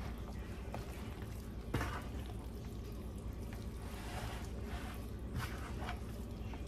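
A spoon stirring pasta salad in a bowl: a few short scrapes and clicks over a steady low hum.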